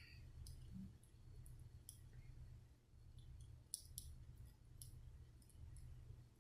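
Faint, irregular clicks of a lock pick and tension wrench working the pins of a Brinks 40 mm brass padlock, a few ticks a second in loose clusters.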